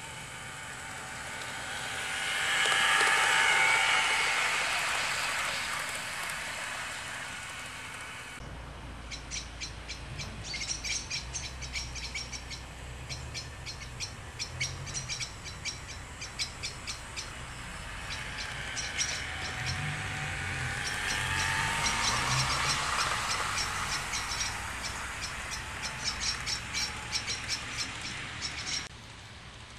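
Bachmann OO-gauge class 411 4-CEP model electric train running on garden railway track. Its motor whine swells as it passes close in the first few seconds. After a cut, the wheels click rapidly and evenly over the rail joints, with the motor hum rising and falling again around the middle.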